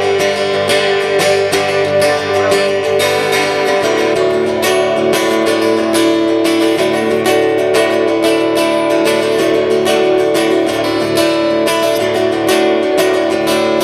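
Acoustic guitar strummed steadily in an even rhythm, playing an instrumental break in a live song between a chorus and the next verse.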